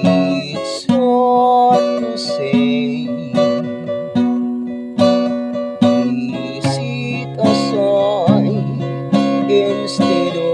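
Acoustic guitar strummed in a steady rhythm, a strum a little more than once a second, with a man singing over it, his voice wavering with vibrato on held notes.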